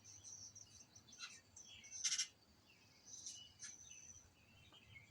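Songbirds chirping from a bird video played on a TV: a run of short, high chirps, the loudest about two seconds in.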